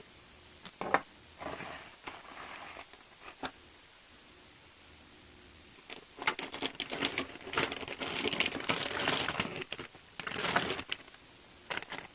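Plastic kit bags crinkling and plastic model parts clicking as the contents of a model-airplane kit box are handled, with a quiet stretch in the middle and the longest, busiest crinkling from about six to eleven seconds in.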